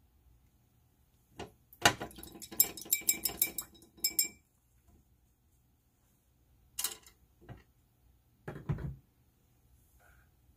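Paintbrush being rinsed in a glass jar of water, clinking rapidly against the glass for about two seconds, followed by a few separate knocks and clinks.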